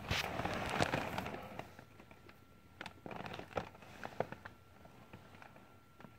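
Rustling and clicking close to the microphone, dense for about the first second and a half, then a handful of sharp clicks; a faint steady high tone runs beneath from about two seconds in.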